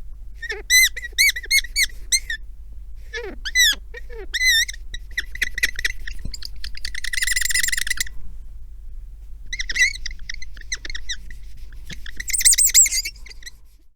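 Cartoon squeak sound effects: a series of short, high, wavering squeaks, with longer squeals about seven seconds in and near the end.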